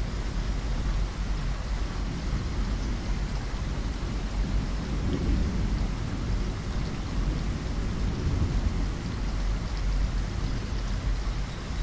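Steady rain falling, an even hiss of drops, with a continuous low rumble underneath that swells slightly a few times.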